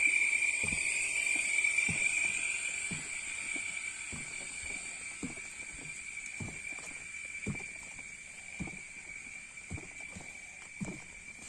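Soft low knocks, roughly one a second, over a steady high-pitched drone that slowly fades.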